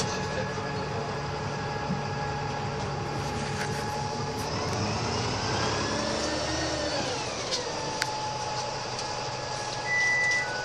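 DAF SB200 Wright Commander bus running under way, with a whine that rises in pitch about four seconds in, holds, and falls away again a few seconds later. Near the end come three short electronic beeps, each lower than the last.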